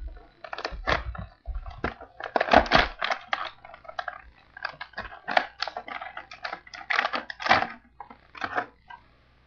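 A toy box and its plastic packaging being opened by hand: a run of irregular rips, crackles and clicks, loudest about two and a half seconds in.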